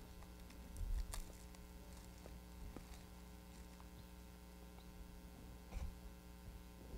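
Quiet, steady electrical mains hum from the sound system, with a few faint knocks about a second in and again near the end.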